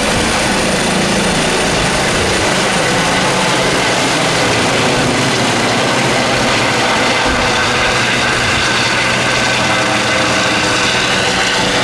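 Airbus EC135 T2+ helicopter climbing away overhead on take-off: loud, steady main-rotor and twin Turboméca Arrius 2B2 turboshaft noise, with a steady high whine over it.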